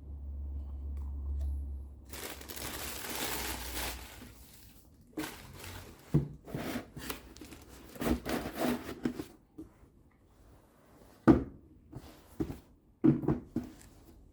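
Packaging being handled during an unboxing: about two seconds of crinkling, then a series of sharp taps and knocks, with the loudest ones near the end.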